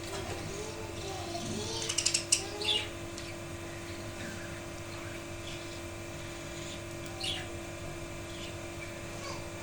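Budgies chirping and warbling in short calls. A quick run of sharp clicks about two seconds in is the loudest sound, over a steady hum.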